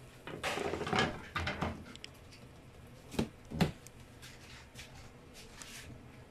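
Cardboard printer box being handled and scraped against the table for about a second and a half, then two sharp clicks a little after three seconds in, followed by faint scratching as a blade works at the packing tape on top of the box.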